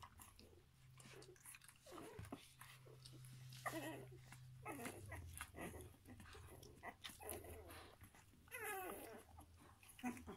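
Young kelpie puppies whimpering and squeaking: a handful of short, high cries, the longest near the end falling in pitch.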